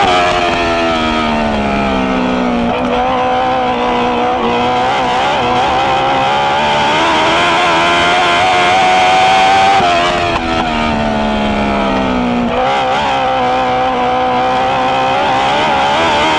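Dwarf race car's engine heard from on board under racing load, running at high revs, with the pitch falling away twice about ten seconds apart as the driver lifts for the turns, then climbing back up each time.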